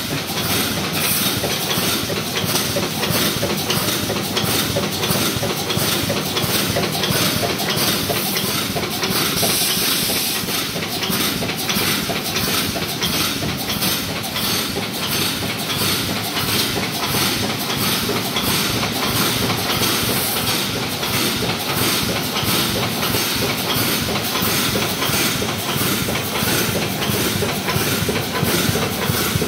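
CNC resistance wire mesh welding machine running, its welding heads and wire feed clattering in a fast, even rhythm over a constant mechanical noise.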